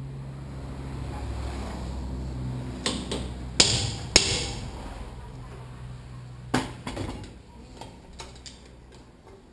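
Sharp metal-on-metal hammer blows, loudest twice between three and four seconds in, then two more about six and a half to seven seconds in, with lighter taps after. A low steady hum sits under the first part.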